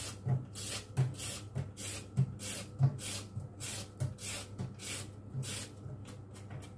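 Vegetable peeler scraping down a raw carrot in quick repeated strokes, about two a second, each a short rasping scrape; the strokes stop near the end.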